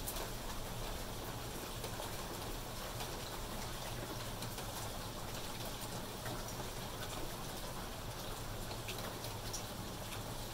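Steady rain falling, an even hiss with scattered single drops ticking close by.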